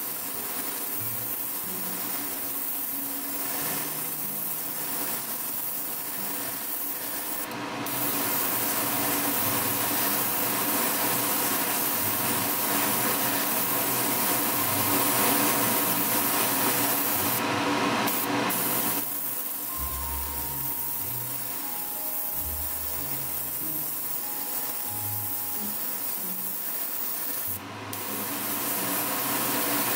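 Airbrush hissing as it sprays paint onto a test spoon. The hiss grows louder about eight seconds in, falls back about nineteen seconds in, and rises again just before the end.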